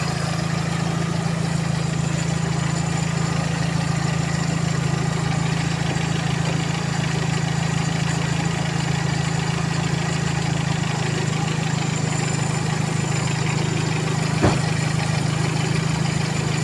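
Toyota Corolla 2E four-cylinder engine idling steadily with the air-conditioning compressor engaged, the recharged AC system being run in. One sharp click near the end.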